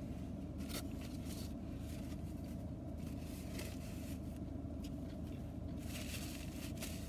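Steady low hum of a car's air conditioning running, with soft scattered rustles and clicks from chewing food and handling a paper napkin.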